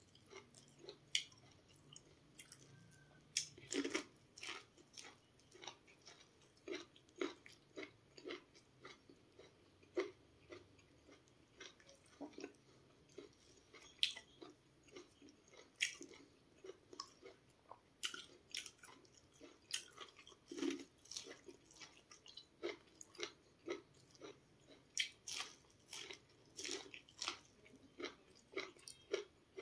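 Person chewing mouthfuls of sweet corn kernels: many short, irregular wet clicks and crunches, several a second.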